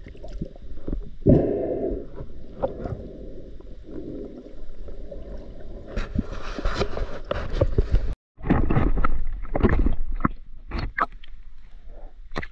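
Muffled underwater water noise around a diving camera as a spearfisher swims: gurgling and sloshing with irregular knocks against the housing. There is a brief gap about eight seconds in, then louder splashing bursts as the camera breaks the surface.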